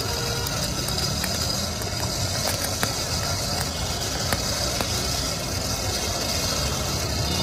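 Steady whir of a small centrifugal blower fanning a charcoal fire, mixed with street traffic noise.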